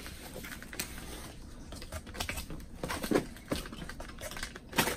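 Cardboard boxes being handled and pressed together: irregular light taps, scrapes and rustles of cardboard, with a louder knock near the end.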